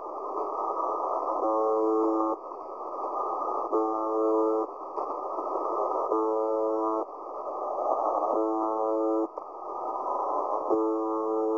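The UVB-76 'Buzzer' shortwave station on 4625 kHz heard through an online receiver in upper sideband. It gives five short buzz tones about a second long, evenly spaced about two and a half seconds apart, with radio static hissing between them.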